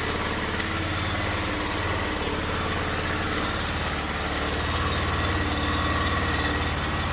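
Sewer jetter's engine running steadily at an even speed.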